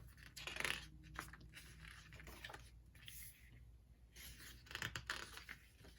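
Pages of a small photo book being handled and turned: soft, irregular paper rustling and brushing, with a few light taps.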